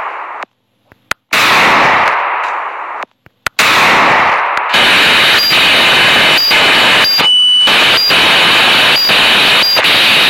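Gunshot sound effects played by a phone prank app: two loud shots, each ringing out for about a second and a half. About three and a half seconds in, a continuous harsh noise with a high steady tone that cuts in and out takes over.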